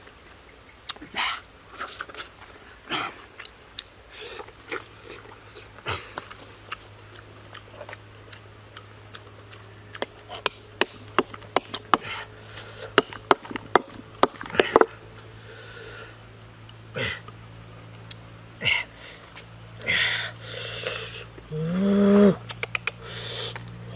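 Sharp irregular clicks and knocks of oyster shells handled against a stone, thickest about halfway through, over a steady insect drone. A short rising call sounds near the end.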